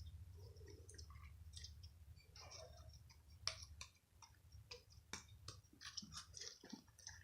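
Faint, irregular crackling and clicking of putty being squeezed and kneaded by hand with star sprinkles worked into it.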